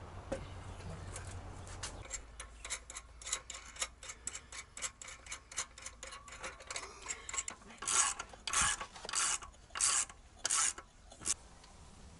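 Metal clamp hardware being tightened down on an aluminium milk-can lid with a wrench: a quick run of light metallic ticks, then about six louder scraping strokes in the second half.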